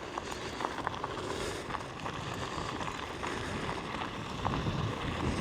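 Nami Klima electric scooter rolling over rough trail ground: a steady low tyre rumble with scattered small clicks and rattles, plus some wind on the microphone.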